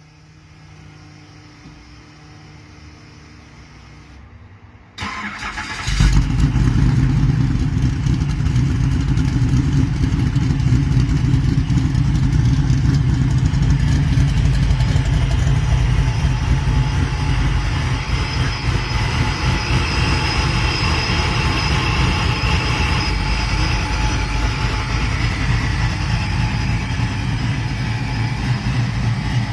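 A V8 in a 1968 Camaro fitted with a Holley Sniper EFI starts up. After a faint steady hum, the starter cranks briefly about five seconds in, and the engine catches about a second later and keeps running steadily.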